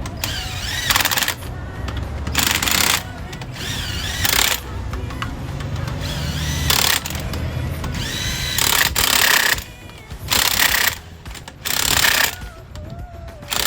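Impact gun firing in about eight short bursts, roughly every second and a half to two seconds, with a low steady hum underneath.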